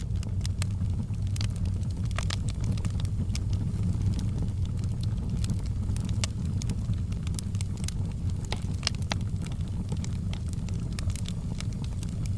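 Wood fire burning in a fireplace, crackling with frequent irregular sharp pops over a steady low rumble.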